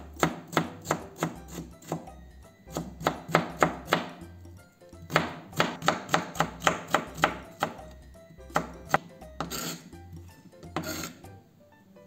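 Kitchen knife chopping cucumber into fine matchsticks on a plastic cutting board: runs of crisp knife strikes, about three to four a second, with short pauses between runs. Two softer, longer swishes near the end.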